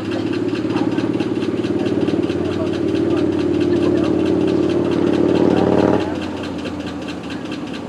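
Pickup truck's engine running under load, growing louder as the throttle is held, then dropping back abruptly about six seconds in.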